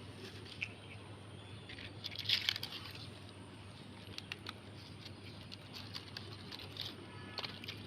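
Plastic litter and roadside plants rustling and crinkling as the litter is picked up by hand: scattered short crackles, thickest about two seconds in.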